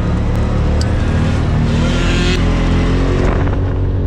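Polaris RZR side-by-side's engine running under way on sand, its pitch rising and falling with the throttle, heard from inside the open cab. About two seconds in there is a brief rush of noise.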